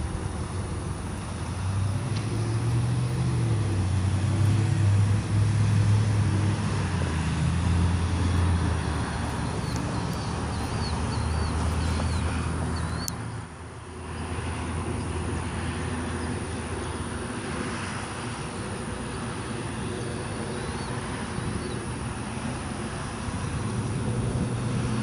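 A motor vehicle engine running nearby, a low hum that shifts up and down in pitch over steady outdoor traffic noise, dropping away briefly about halfway through.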